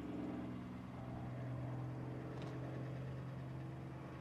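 Allison V-1710 V-12 engine of an Ilyushin IL-2 Sturmovik in flight, a steady droning hum.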